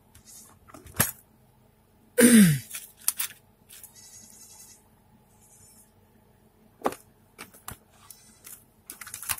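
Small parts rattling and clicking in a plastic compartment organizer as a hand searches through it. About two seconds in there is a short, loud cry that falls in pitch, the loudest sound here.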